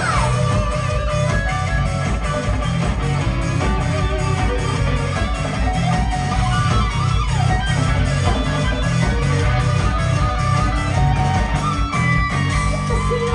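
Live heavy metal band: electric guitar and violin play lead lines over pounding drums and bass, heard loud from the audience.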